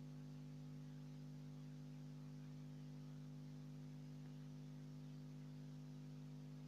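Faint steady hum with a light hiss, unchanging throughout.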